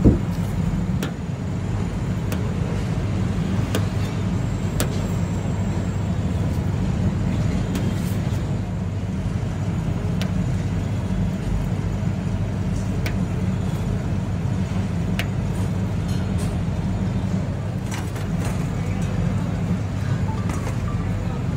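Steady low hum and rumble of background noise. Over it come faint sharp clicks every few seconds as a knife cutting paneer taps the steel counter.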